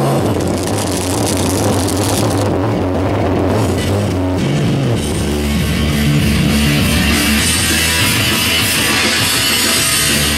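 Loud rock music played over a Sony home-theater loudspeaker, heard in the room. The song gets fuller and brighter about halfway through.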